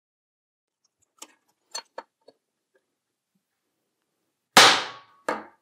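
An axe edge hardfaced with tool-steel weld being struck into a steel nail, testing the hardness of the edge. A few light clicks come first, then a loud sharp metal-on-metal strike with a short ring about four and a half seconds in, and a lighter strike just after.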